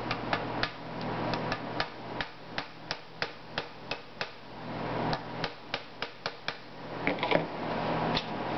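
Small hammer tapping a hard-plastic-coated key, used as a drift, against the Just Right Carbine's fore-end lock ring: about twenty sharp taps at two to three a second, knocking the ring loose.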